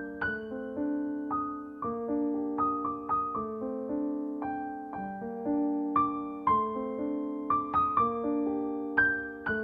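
Background piano music: gentle repeated chords and a simple melody of struck notes at a slow, even pace.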